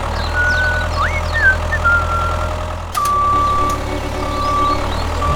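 Heavy machine engine running with a steady low drone, with short whistling chirps over it in the first two seconds. From about three seconds in, a back-up alarm beeps three times.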